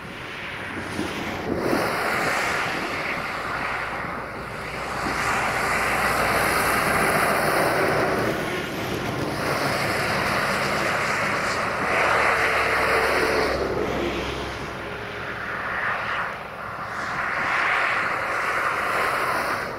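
Distant Boeing 737-800 with CFM56 jet engines running as it rolls along the runway, mixed with wind buffeting the microphone. The combined noise swells and eases several times.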